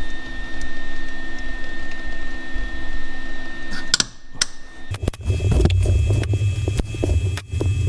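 Welder at work on a broken bolt: a steady electrical hum, then sharp clicks about four seconds in, then a louder, lower buzz with crackling.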